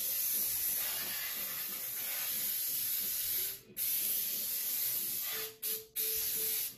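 Aerosol can of non-stick cooking spray hissing as it coats the inside of a cake pan: one long spray of about three and a half seconds, then after a brief break a second spray, a quick puff, and a last short spray that cuts off just before the end.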